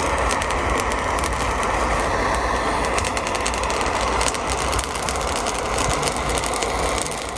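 Handheld gas torch flame hissing steadily while it chars Manganji peppers in a steel pan, with the blistering pepper skins crackling and popping throughout, more densely from about two seconds in.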